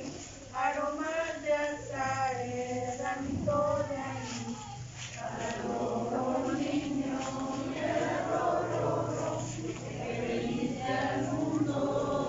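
A group of men, women and children singing a traditional Christmas lullaby (arrullo) to the Christ Child together, the voices wavering and not quite in unison.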